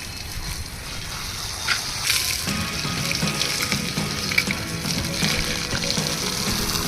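Running water hitting a new wall, as the wall is cured with water. Background music comes in about two and a half seconds in.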